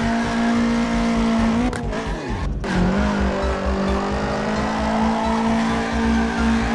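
Race-car engine sound effect: a steady engine drone whose pitch dips and glides down just before the middle, cuts out briefly, then resumes steadily.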